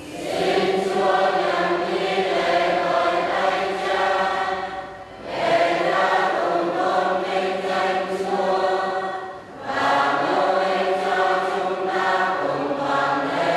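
A church choir sings a hymn in long held phrases, with short breaks about five and ten seconds in. It is the offertory singing of a Catholic Mass.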